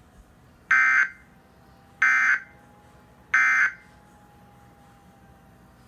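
Three short bursts of Emergency Alert System digital data (SAME tones), the end-of-message signal sent after an alert. Each burst is a harsh, buzzy screech lasting a little over half a second, and they come about a second and a half apart.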